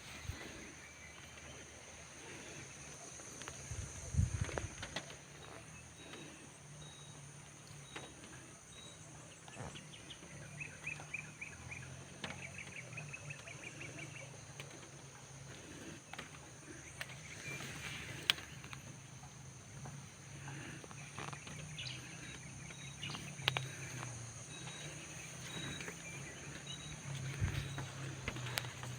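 Quiet rural outdoor ambience: faint bird chirps and a short trill, over a steady high-pitched hiss, with a few scattered knocks.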